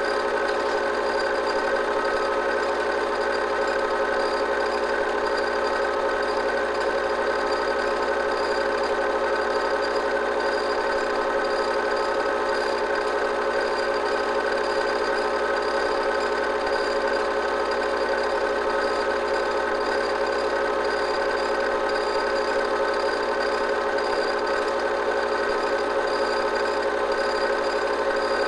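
Film projector running, a steady mechanical whir and hum with a few held whining tones.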